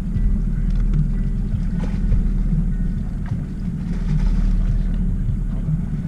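Steady low rumble of a boat's outboard motor running at trolling speed, mixed with wind buffeting the microphone.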